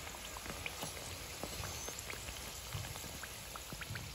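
Samosas deep-frying in oil on low-to-medium heat: a faint, steady sizzle of bubbling oil with many small scattered pops and crackles.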